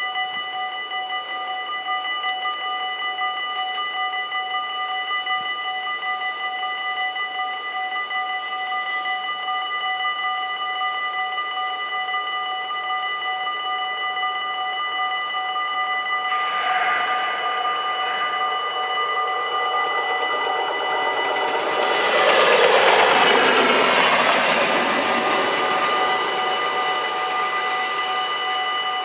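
Dutch AKI level-crossing bells ringing continuously. A train comes through at speed: its noise swells about 22 seconds in, is the loudest thing near 23 to 24 seconds, and fades by about 26 seconds while the bells keep ringing.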